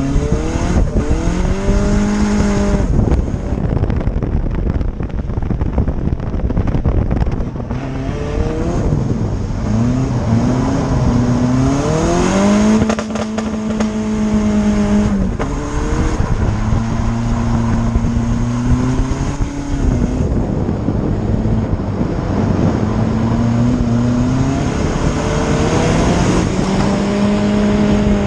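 Drift car's engine, heard from a camera mounted on the car's side, revving up and down repeatedly through slides on a wet track. It climbs and holds high revs for a few seconds at a time before dropping, over constant wind and spray noise.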